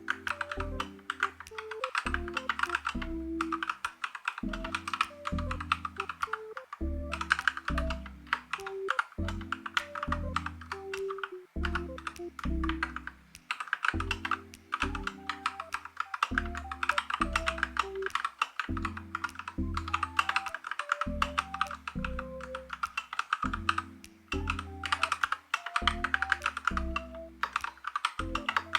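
Fast typing on an Akko 5108B mechanical keyboard: runs of rapid clacking keystrokes, broken by short pauses every several seconds.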